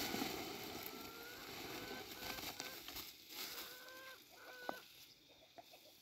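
Chickens clucking: a handful of short, level-pitched calls over a faint noisy background that fades away.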